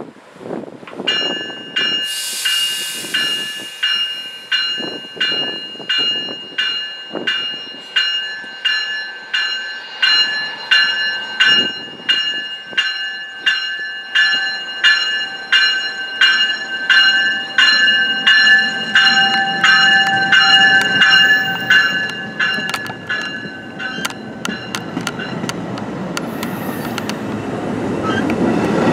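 Railroad bell ringing steadily, about one and a half strikes a second, then stopping about 24 seconds in. A train's rumble builds up under it near the end.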